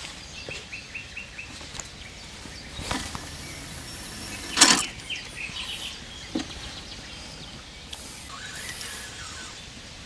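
A feeder rod cast: a swish, then a louder, sharp whoosh about halfway through, with small birds chirping around it and a quick run of short chirps near the start.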